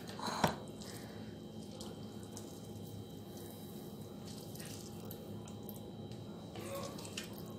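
Faint, steady water running from a tap, with a single sharp knock about half a second in.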